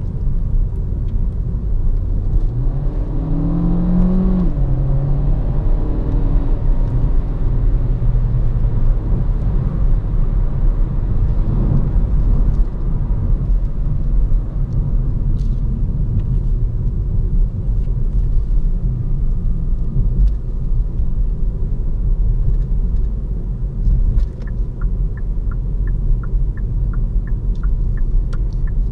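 Hyundai i30 Fastback N-Line's 1.4 T-GDi turbo four-cylinder engine and tyre rumble heard from inside the cabin. A few seconds in, the engine note rises under acceleration and then drops at a dual-clutch upshift, before settling into a steady cruise. Near the end the turn-signal indicator ticks about twice a second.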